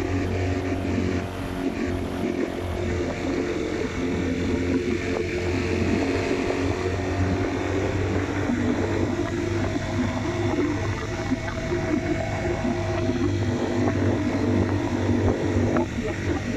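Motorcycle engine running at a fairly steady cruising speed while riding, its pitch holding roughly even, under rushing wind and road noise.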